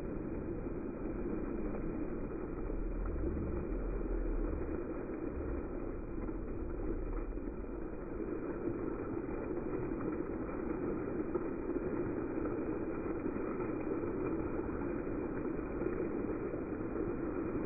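Steady rush and splash of a dancing fountain's water jets falling back onto a shallow paved basin, with a brief low rumble about three seconds in.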